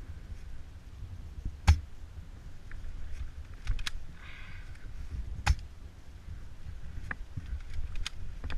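Wind rumbling on the microphone, with a few sharp clicks; the two loudest are about four seconds apart, and there is a short rustle midway.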